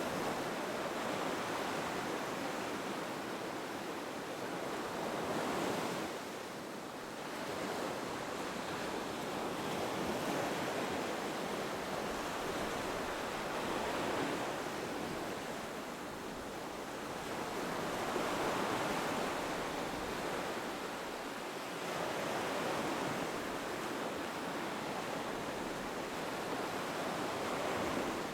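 Ocean surf breaking on a beach, each wave swelling and washing back every four to five seconds.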